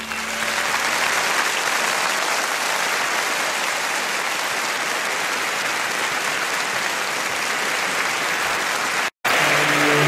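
Crowd applause, loud and steady, breaking off abruptly a little after nine seconds in. After a moment's gap, music with held notes begins, with the clapping still under it.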